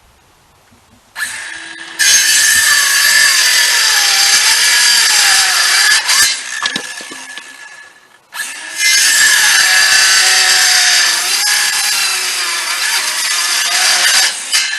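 Power saw making two long cuts of about five and six seconds with a short pause between; its motor pitch dips and recovers as it labours in the cut.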